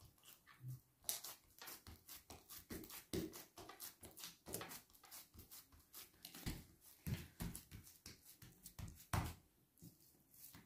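Hands pressing and patting a ball of dough flat on an oiled granite countertop: faint, irregular soft pats and smacks, a few louder ones near the middle and just before the end.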